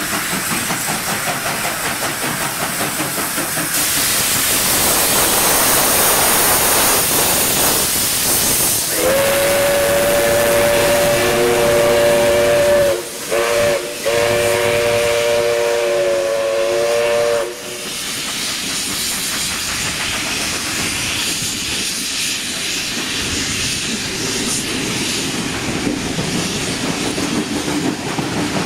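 NSW 59 class steam locomotive 5917 working hard with a loud hiss of steam, then its chime whistle sounds about nine seconds in: three blasts of a three-note chord, long, short, long, lasting about eight seconds. After the whistle the train's carriages roll past.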